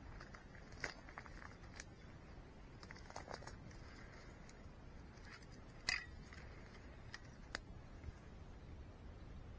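Faint scattered sharp clicks and snaps, about half a dozen, the loudest about six seconds in.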